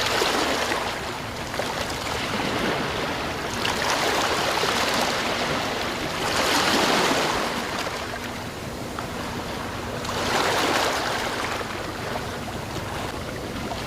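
Sea waves washing ashore, a steady rush of surf that swells with each breaking wave, about four surges.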